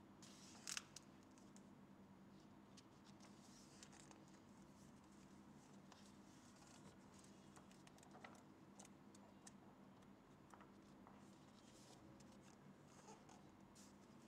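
Faint rustling and flicking of paper pages as a hardcover book's pages are turned and riffled by hand, with a brief louder rustle about a second in, over a low steady hum.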